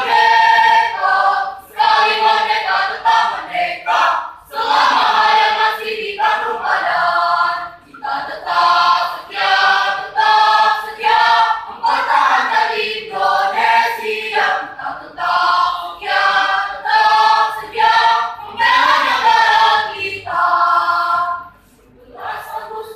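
Mixed choir of men and women singing an Indonesian national song in phrases, with short breaks between them and a brief dip near the end.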